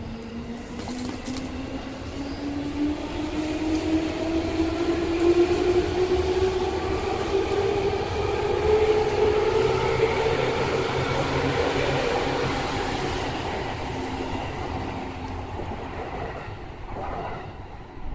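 JR 205 series electric commuter train pulling away from the platform: its traction motors whine, rising steadily in pitch as it accelerates, over the rumble of the wheels. It grows louder through the middle, then fades as the cars draw away.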